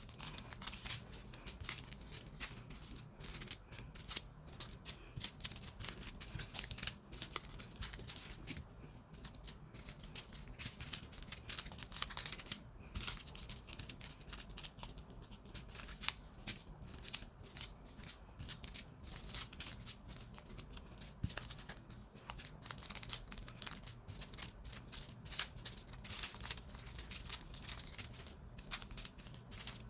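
Small plastic bags of diamond painting drills being handled one after another: irregular crinkling of the plastic and the small rattle of the drills inside, as the bags are counted off in an inventory of the kit.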